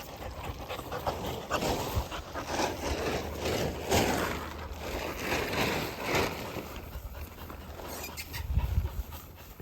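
Plastic tarp rustling and crinkling in irregular strokes as a dog moves under it, easing off near the end.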